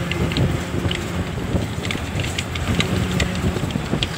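Engine and road noise of a moving vehicle heard from inside it, with wind on the microphone and frequent small clicks and rattles.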